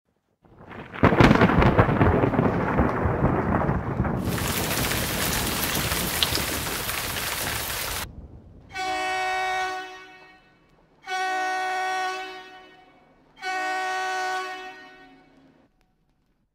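Thunderstorm sound effect: a loud crash of thunder rumbling for a few seconds, then heavy rain that cuts off abruptly about eight seconds in. Then three identical long chords sound about two seconds apart, each fading out.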